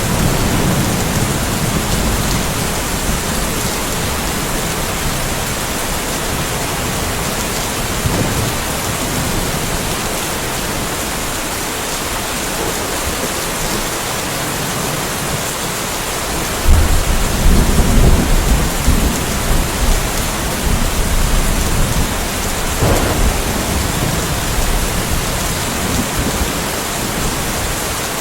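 Steady rain falling, with a roll of thunder that breaks in suddenly about two-thirds of the way through and rumbles on for several seconds.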